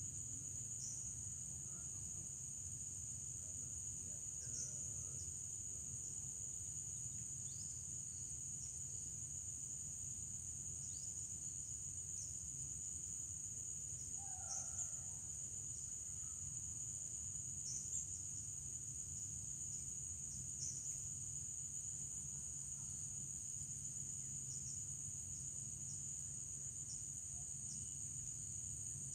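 Steady, high-pitched insect chorus, with short faint chirps scattered through and a brief louder call about fifteen seconds in.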